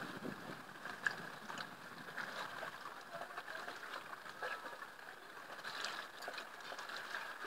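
Water lapping and splashing close by: small irregular splashes and ticks over a steady hiss.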